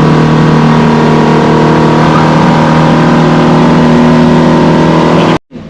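A boat's motor running steadily at speed, with a rush of wind and water; the sound cuts off suddenly near the end.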